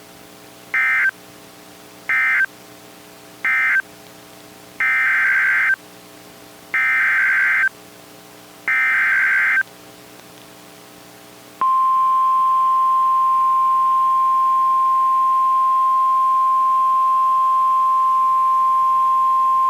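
Emergency Alert System data bursts from a NOAA Weather Radio broadcast: three short buzzy end-of-message bursts, then three longer SAME header bursts announcing the next alert, then the steady 1050 Hz weather radio warning alarm tone, held for about nine seconds, marking the start of a new warning. A faint steady hum lies under the gaps.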